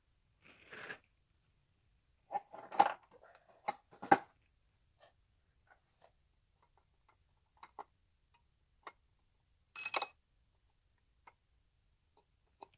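Heavy steel parts of a dismantled Copeland semi-hermetic compressor being handled and set down: a cluster of clanks and knocks from about two to four seconds in, scattered light clicks, and a single ringing metal clink near ten seconds.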